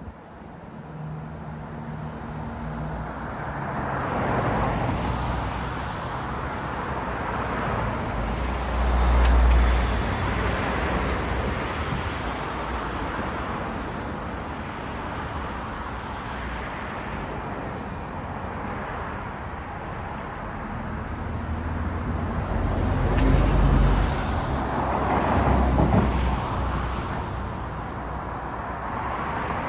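City road traffic: cars passing one after another in a steady hiss of tyres and engines, with louder passes swelling up about a third of the way in and again near the end, the heaviest carrying a deep engine rumble.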